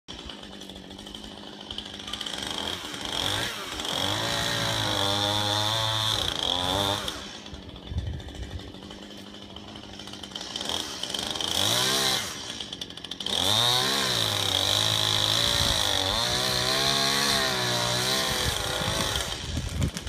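Chainsaw cutting a pine tree, revving up and holding high for long stretches, dropping back to a lower idle for a few seconds in the middle before revving again.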